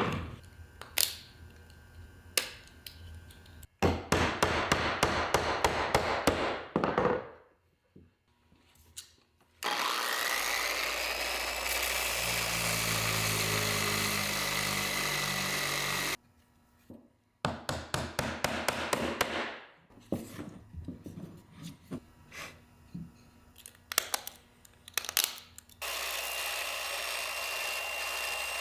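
Woodworking on small cedar sticks in several short bursts: sharp knocks and taps, a run of fast rasping strokes like sawing, and in the middle about six seconds of a power tool running, its whine rising as it spins up, cut off suddenly.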